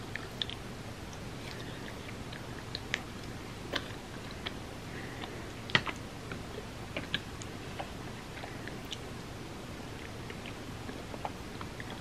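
Close-miked eating of mochi ice cream: soft wet chewing and mouth sounds with scattered small clicks, the loudest about halfway through, over a steady low hiss.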